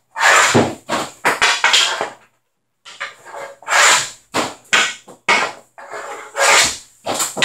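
CCM Heat street hockey stick clacking and scraping on a hard floor as pucks are shot, with sharp knocks of stick on puck, in a rapid run of several hits a second with a brief pause about two seconds in.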